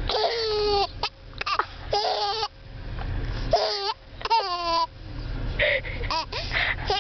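A baby laughing in repeated high-pitched bouts, her laughter broken by hiccups. A car's low road rumble runs underneath.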